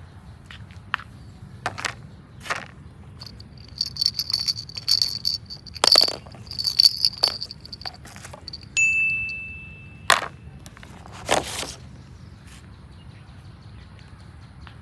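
Plastic toy baby rattle jingling as small plastic toys are handled and knocked against concrete paving, with a string of sharp clicks and knocks. One bright ding about nine seconds in rings and fades over about a second.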